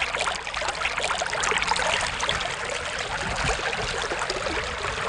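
Water running with a busy, steady trickling sound.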